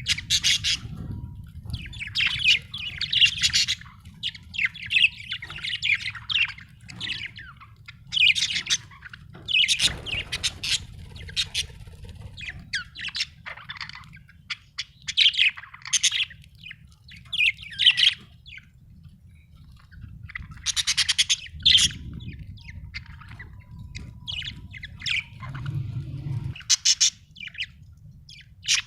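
Budgerigars chirping and squawking in quick repeated bursts of high, twittering calls with short pauses between, over a faint low rumble.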